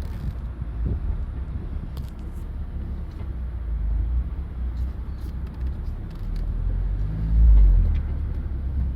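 Drivetrain of a 2020 Mazda Miata ND with a manual gearbox, in first gear at low rpm: a steady low rumble with a few light clicks, swelling to a louder low drone about seven seconds in. This is the first-gear noise the owner hears when the clutch is pressed at low rpm.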